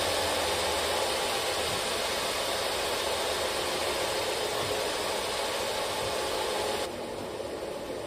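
Steady rushing machine noise with a faint hum, running evenly and dropping a little in level about seven seconds in.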